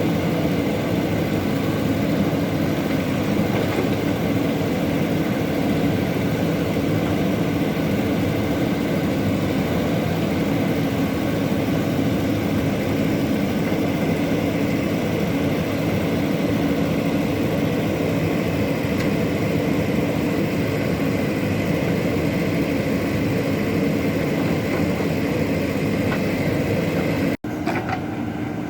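Heavy diesel engine of an excavator running steadily. About 27 seconds in the sound cuts off abruptly and a quieter machine sound takes over.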